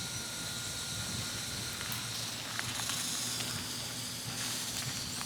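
Consumer smoke bomb burning with a steady hiss, with a few faint clicks.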